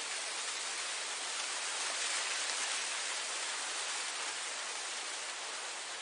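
Wind blowing through grass, a steady hissing rush that swells slightly a couple of seconds in and eases a little near the end.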